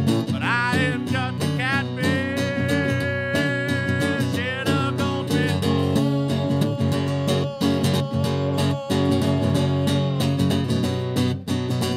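A live country song: a man singing long, drawn-out notes over guitar, with one note held for a couple of seconds.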